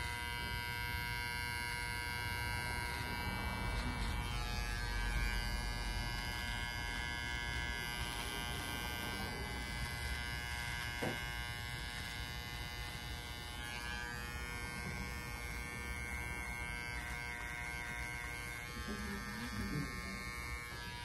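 Electric beard trimmer buzzing steadily as it trims the beard along the neck and jawline.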